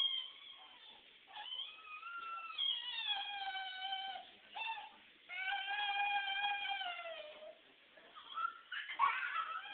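A baby's long, high-pitched squealing whines, several drawn-out calls a second or two each that slide slowly down in pitch. A knock comes near the end.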